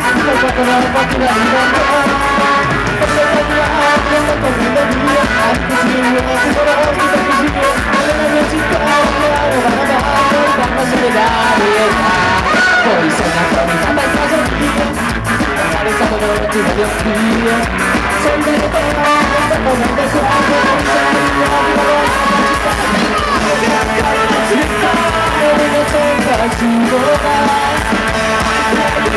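Ska-punk band playing live, with electric guitars, drums, saxophone and trumpet and sung vocals, loud and continuous.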